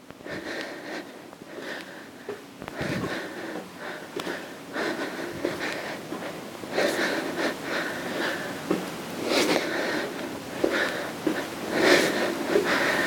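A woman breathing audibly in short repeated breaths during a cardio warm-up of side taps and arm swings, getting louder toward the end.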